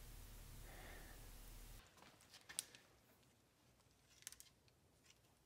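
Near silence: faint room tone with a low hum that cuts off abruptly a little under two seconds in, followed by a couple of faint clicks.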